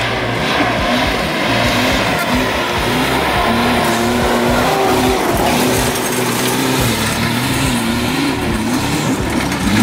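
Mitsubishi L200 pickup's diesel engine revving up and down under load as it crawls up a steep, rocky off-road climb, its pitch rising and falling with the throttle.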